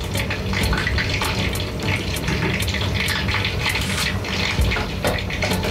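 Spring rolls frying in a pan of oil: a steady sizzle with constant fine crackling.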